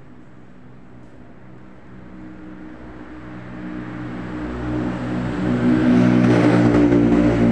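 A motorcycle engine approaching along the street, growing steadily louder from about two seconds in and loudest near the end.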